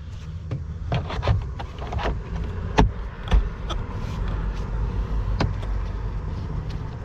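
A series of sharp clicks and knocks as a part is fitted back into place during a cabin air filter reinstall, the loudest about three seconds in. A steady low rumble runs underneath.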